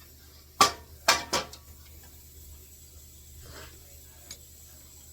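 Pneumatic air hammer, turned down a little, firing three short sharp bursts close together about a second in, setting rivets in a sheet-metal bomber seat; a couple of faint ticks follow.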